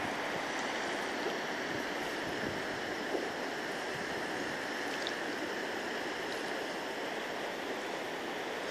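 River Trent water flowing, a steady even rush of noise with no breaks.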